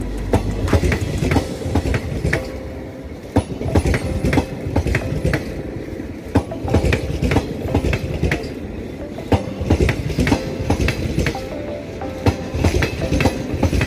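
Passenger train coaches rolling past, their wheels clattering over rail joints in a steady run of sharp clicks and knocks.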